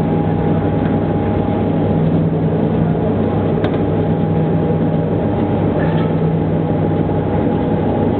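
Small ring die feed pellet mill running steadily while producing pellets, a constant loud mechanical drone with a steady hum. A single sharp tick about halfway through.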